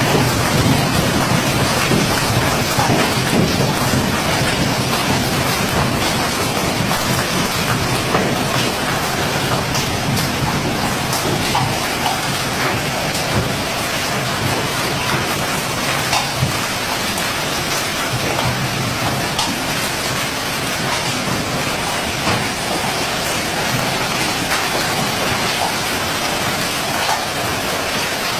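Hailstorm with heavy rain pelting down: a dense, steady hiss with many sharp ticks of hailstones striking hard surfaces, a little heavier in the first few seconds.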